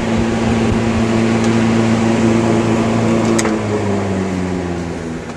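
Mathes cooler fan with a new Universal brand electric motor running with a steady hum. A switch clicks a little over three seconds in, and the hum then drops in pitch and fades as the blade slows down.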